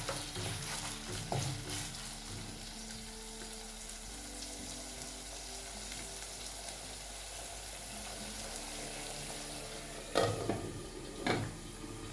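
Beef chunks sizzling steadily in hot oil in a pot, with a wooden spoon scraping and knocking through the meat in the first couple of seconds. Near the end come two sharp clatters as the pot's glass lid is handled and set on.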